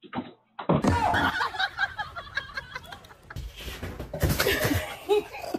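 People laughing, with bits of talk mixed in.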